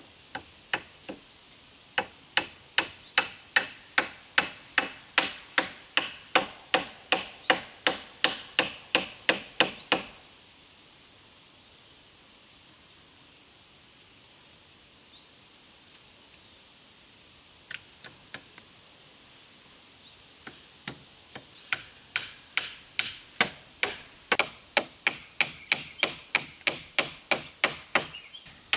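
A hammer striking a wooden pole frame in steady runs of blows, about two or three a second, pausing for about ten seconds in the middle before resuming a little faster. Insects keep up a steady high buzz throughout.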